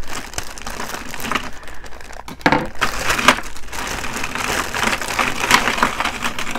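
Packaging being opened by hand and rummaged through: a dense crinkling and crackling, busiest about halfway through.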